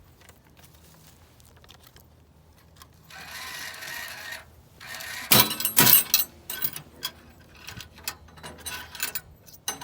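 Metal clicks and clatter from a coin-operated vending machine being handled, with a brief rushing noise about three seconds in and the loudest knocks a little past halfway, then scattered lighter clicks.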